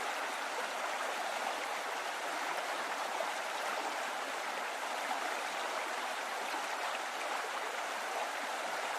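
A steady, even rushing noise like running water, with no deep rumble beneath it.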